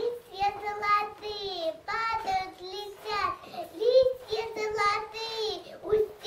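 A young girl singing a song solo, one child's voice with held notes and short breaks between phrases, with little or no accompaniment.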